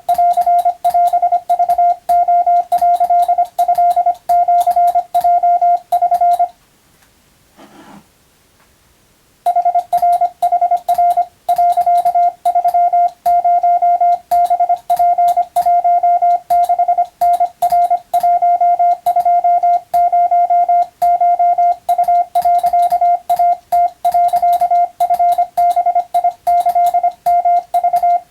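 Morse code (CW) tone at a single steady pitch, keyed on and off in quick dots and dashes, with a click at each keying edge. About six seconds in it stops for some three seconds, then the keying resumes.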